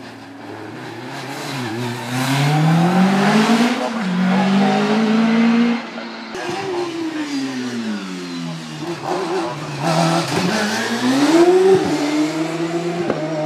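Single-seater racing car engines accelerating hard on a hillclimb course. The revs climb in steps through gear changes and cut off sharply about six seconds in. A second car's engine then drops in pitch and winds up again as it accelerates toward the spectators.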